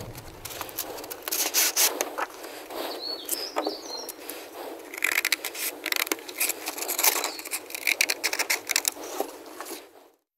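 Crinkling and rustling of a paper-and-plastic sandpaper pack being opened and handled, then scissors cutting through a sheet of 80-grit sandpaper, heard as a dense run of crackly scrapes and clicks.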